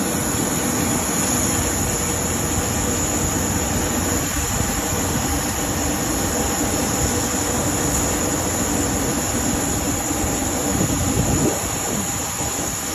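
Steady jet aircraft noise: a continuous rumble with a high whine above it, easing slightly near the end.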